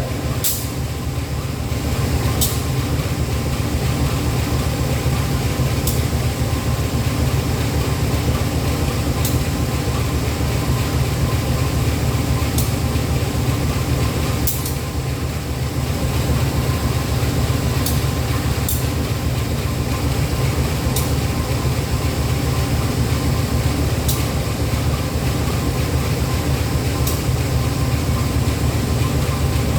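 Diesel-electric engine of a CC 201 locomotive running steadily with a deep, even hum. Sharp light clicks come every two to three seconds.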